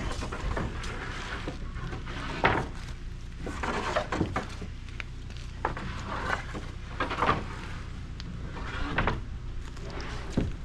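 Sawn oak boards knocking and clattering as they are set down and stacked onto a truck, a few knocks every second or two over a steady low hum.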